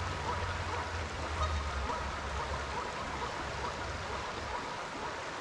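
Steady rush of a trout stream's running water, with a low rumble under it that fades out about three seconds in.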